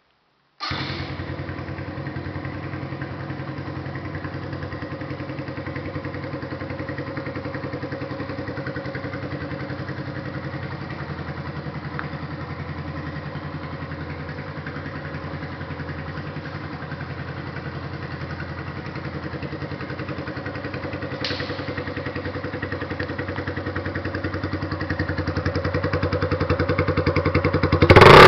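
Suzuki motorcycle engine idling steadily. It begins abruptly about a second in, grows louder over the last few seconds, and ends in a sudden, much louder sound.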